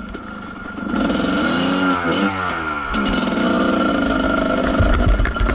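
Kawasaki KDX220 two-stroke dirt bike engine revving up about a second in. Its pitch rises and falls through a few throttle changes, then it holds a steady high revs. There are low thumps near the end.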